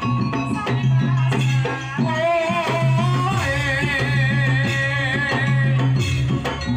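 Live jaranan music: drums and other percussion struck in a quick rhythm over a repeated low note. A female singer (sinden) comes in about two seconds in, with a wavering, vibrato-laden line.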